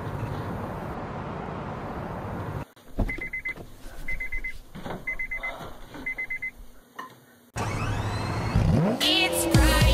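Steady car running noise with a low rumble, which cuts off suddenly. Then come four short electronic beeps about a second apart, with a few clicks between them. About three-quarters of the way in, a louder sound starts, with pitch glides sweeping up and down near the end.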